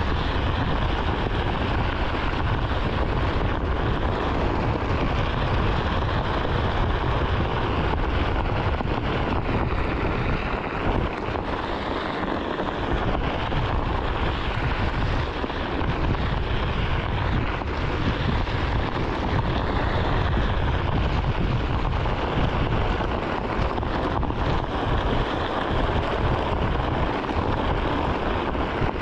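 Onewheel rolling steadily over a gravel desert trail, its tire on the loose surface making a continuous noise, with wind rumbling on the action camera's microphone.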